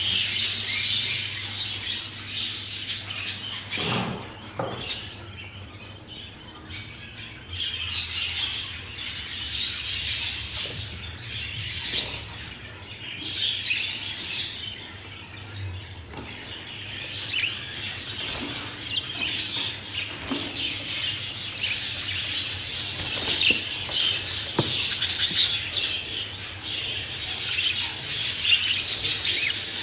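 Budgerigars chattering and chirping continuously, many overlapping warbles and chirps.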